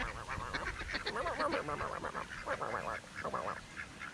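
A flock of domestic ducks quacking, many calls overlapping in quick clusters.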